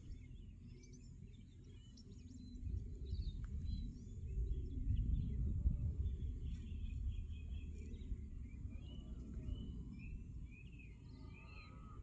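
Small birds chirping and singing in short, high, scattered phrases. Under them runs a low rumble of wind on the microphone, louder from about three seconds in.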